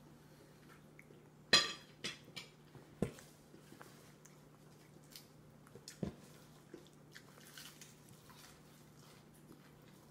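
A toddler eating macaroni with her fingers from a bowl on a high-chair tray: a few short knocks and clicks of hand and bowl against the tray, the loudest about one and a half seconds in and another about six seconds in, with soft chewing and squishing between. A faint steady hum runs underneath.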